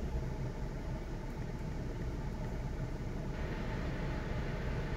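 Jeep Wrangler JL's engine idling, heard from inside the cabin: a steady low hum under a wash of air noise, the hiss getting a little brighter about three seconds in.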